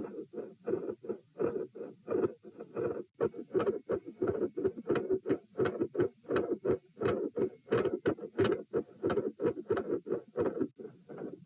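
Human heart sounds recorded at the pulmonic area of the chest: a regular run of beats, each a soft thump group, with sharp clicks among them. The uploader notes fixed splitting of the second heart sound, extra sounds and clicks as recurring in this subject.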